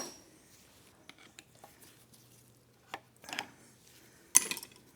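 Small steel engine parts clinking as they are handled and set down during the teardown of a motorcycle engine: a sharp clink at the start, a light tick with some rustling about three seconds in, and a louder ringing metal clatter near the end.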